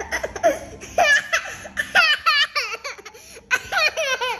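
A child laughing: several bursts of quick, high-pitched laughs.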